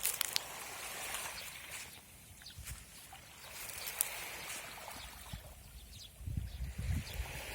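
Small sea waves washing up on the beach and drawing back, with scattered clicks of footsteps on sand and shells. Wind buffets the microphone from about six seconds in.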